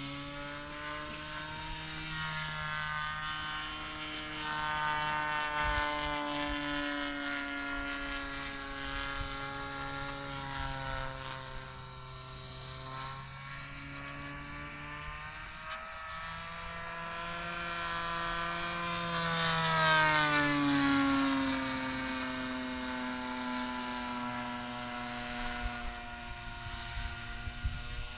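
Super Tigre 4500 single-cylinder two-stroke model engine, converted to run on gasoline, turning a 22x8 propeller on a radio-controlled aerobatic plane in flight. Its drone wavers in pitch and loudness as the plane manoeuvres, grows louder and higher about eighteen to twenty seconds in, then glides down in pitch as it passes and moves away.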